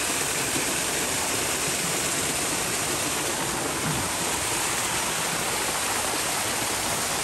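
Stream water rushing, a steady even rush.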